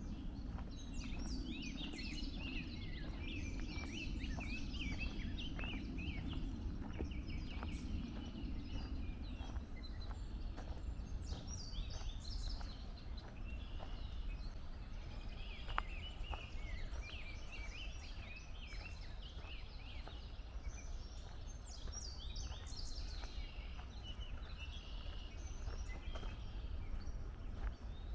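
Several songbirds chirping and trilling at once, with walking footsteps on a trail beneath them and a low steady rumble.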